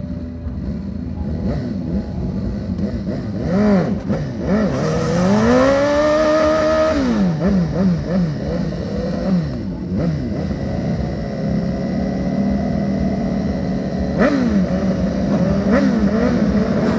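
Harley-Davidson V-twin motorcycle engines running loud, with one long rev rising in pitch about four seconds in, held for a couple of seconds and then dropping away. Quick throttle blips follow, then steadier running with another short rev near the end.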